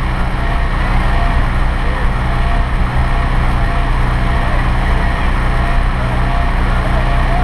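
Fire truck's diesel engine running steadily at a slow crawl, a constant low hum with a rough rumble over it.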